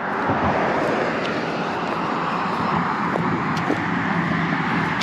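Steady roar of road traffic, even in loudness throughout, with a few faint ticks.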